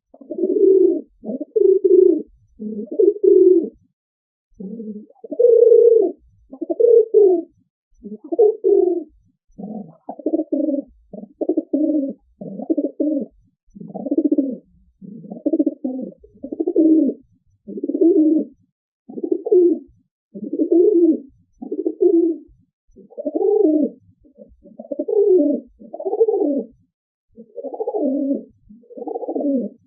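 Dove cooing: a long, unbroken series of low coo notes, about one a second, some coming in quick pairs, each note wavering in pitch.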